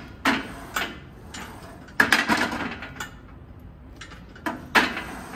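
Adjustable weight bench's backrest being raised to upright: metal clanks and ratchet-like clicks from the adjustment in several short bursts, loudest about two seconds in and again near the end.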